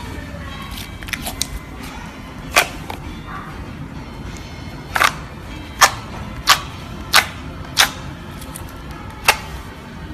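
Sharp, irregular snapping pops from slime being squeezed and pressed, its trapped air bubbles popping, about seven loud ones among a few fainter clicks.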